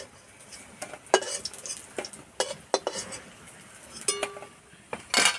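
Metal spatula and steel plate clinking and scraping against a kadai: scattered sharp clinks, a short ringing clink about four seconds in, and a louder clatter near the end.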